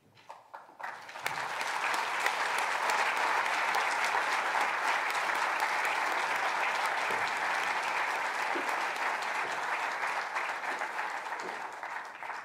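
Audience applauding: a few scattered claps at first, swelling within about a second into steady applause that thins out near the end.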